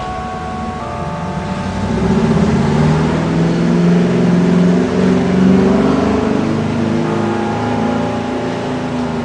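A motor vehicle's engine revving, loudest from about two to seven seconds in, over the tower's noon bell chimes, which go on ringing behind it.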